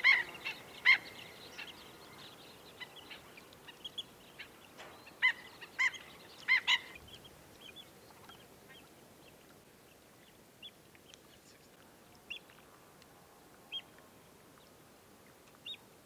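Black-necked stilts calling with short, sharp single notes. The calls come loud and close together over the first seven seconds, then thin out into a few fainter calls.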